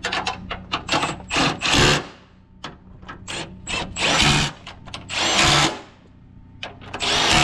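Power tool run in a series of short bursts, several about half a second long, driving fasteners as body parts are fitted to the truck.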